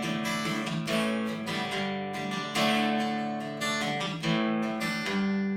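Acoustic guitar strummed in chords, an instrumental passage between sung verses of a slow love song.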